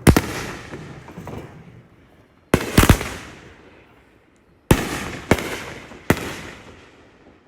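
Large aerial fireworks bursting overhead: about six loud booms, one at the start, two close together a little before the three-second mark, then three more a second or less apart. Each boom is followed by a rumbling echo that dies away.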